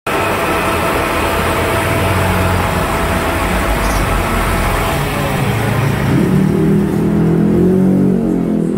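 Milling machine running: a steady, loud mechanical hum with a faint whine. The higher part of the noise eases off about five seconds in, and lower tones that shift in pitch come in over the last few seconds.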